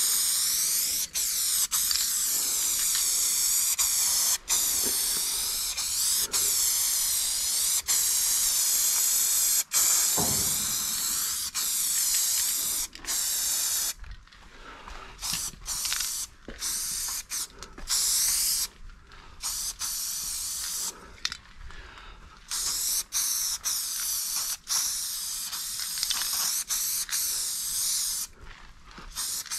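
Aerosol spray-paint can hissing as paint is sprayed on a freight wagon. For the first half it runs in long, nearly continuous passes; after that it comes in shorter bursts with frequent brief stops.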